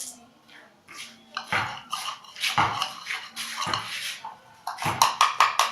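Spoon clinking and scraping against a mixing bowl while slime ingredients are stirred: scattered knocks at first, then from about five seconds in quick, regular strokes about four a second.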